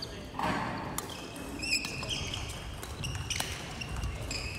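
Badminton players' court shoes squeaking on a wooden gym floor, with a few sharp racket strikes on a shuttlecock.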